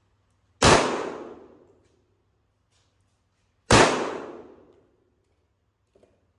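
Two shots from a Sig Sauer 1911 Spartan .45 ACP pistol, about three seconds apart, each with an echo trailing off over about a second. A faint click follows near the end.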